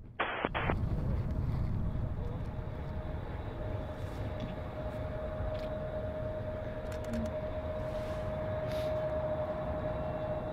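Airbus A321neo's Pratt & Whitney geared turbofan engines heard at a distance at takeoff power: a steady low rumble with a steady whine that grows louder about four seconds in.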